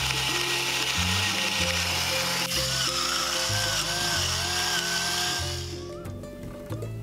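Pepper mill grinding black pepper onto eggs and milk, a steady grinding noise that stops about six seconds in, over background music.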